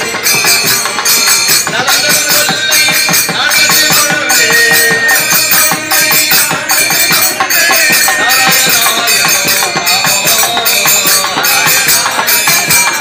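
Live devotional bhajan music: voices singing a melody over jingling hand percussion that keeps a steady, fast beat.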